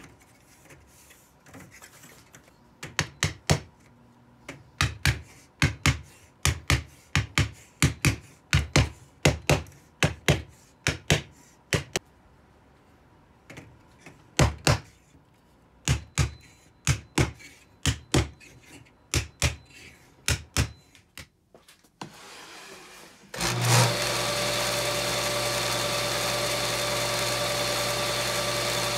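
Many light, sharp taps seating walnut kumiko strips into a lattice, in quick uneven runs of a few at a time. Near the end a table saw starts and runs steadily without cutting.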